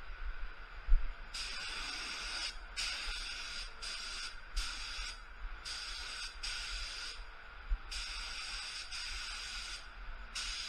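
Gravity-feed paint spray gun hissing in repeated bursts of a second or two, with short breaks as the trigger is let off between passes over a car door.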